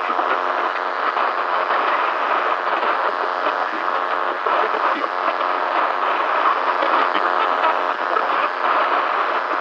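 Crackling, hissing static of a weak, distorted broadcast signal, thin-sounding with no low end and full of fine crackles, running steadily without a break.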